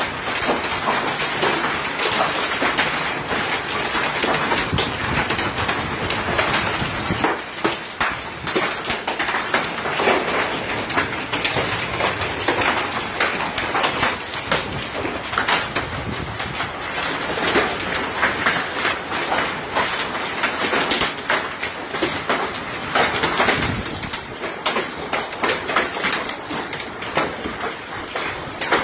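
Hail and rain pelting down on a roof and the ground: a dense, continuous clatter of countless small impacts.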